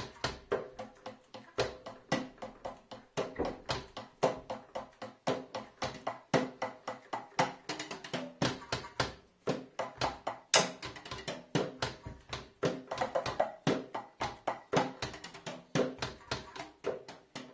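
Acoustic sound of wooden drumsticks tapping DIY mesh drum pads built from a toy drum kit, heard without the drum module: quick, dry taps several a second with no bass, in a played drum pattern. One sharper, brighter hit comes about ten seconds in.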